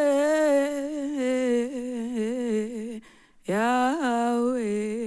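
A solo voice singing a wordless run: held notes with quick ornamented turns and wavers. It comes in two phrases with a short breath about three seconds in.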